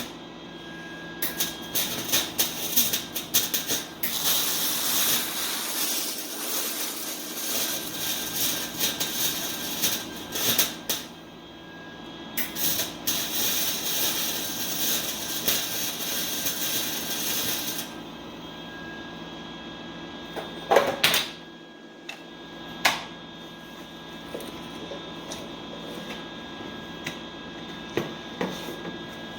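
Welding arc on a car exhaust pipe crackling and sizzling in bursts of several seconds each, with short breaks, over a steady hum. The welding stops a little past halfway, leaving the hum and a few sharp clicks.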